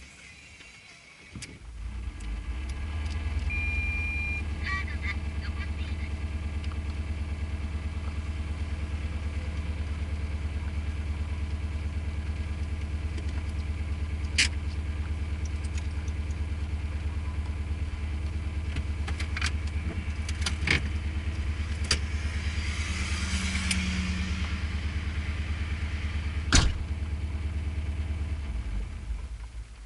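A vehicle engine running at a steady, unchanging speed. It comes in about a second and a half in and stops shortly before the end. A short high beep sounds about four seconds in, and several sharp clicks follow later.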